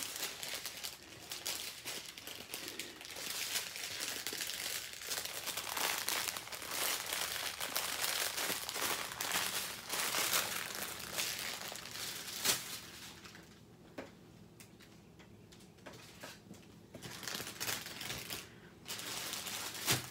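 Plastic bags and wrapping crinkling and rustling as they are handled, in an irregular run of crackles that goes quieter for a few seconds about two-thirds through.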